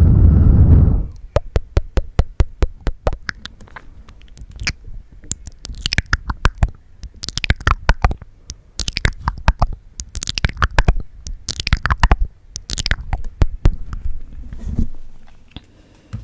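Close-miked ASMR mouth sounds: rapid tongue clicks and wet mouth noises, opening with a loud breath rushing onto the microphone for about the first second.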